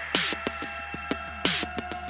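Electronic background music with a fast, regular drum beat and held synth tones.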